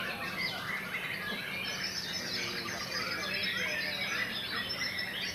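Several caged white-rumped shamas singing at once in competition: a dense, unbroken tangle of overlapping whistles and trills, over a faint steady low hum.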